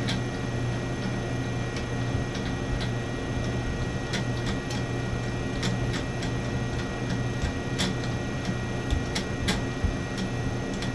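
Light, irregular clicks and taps of a microscope objective lens being handled and screwed into its threaded mount, over a steady low hum of lab equipment.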